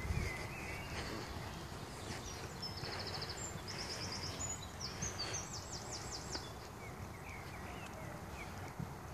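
A songbird sings high, rapid trilled phrases for a few seconds midway, with a few short chirps before and after, over steady outdoor background noise.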